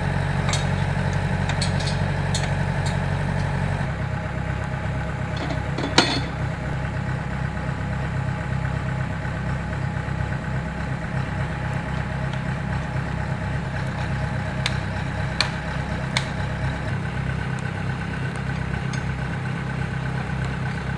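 An engine idles steadily, its note shifting slightly about four seconds in. A few sharp metallic clicks sound over it; the loudest comes about six seconds in and three more come close together later.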